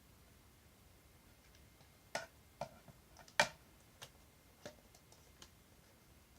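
Hands handling packaging and boxed items: scattered sharp clicks and taps at an uneven pace. The first two seconds are quiet, and the loudest click comes about halfway through.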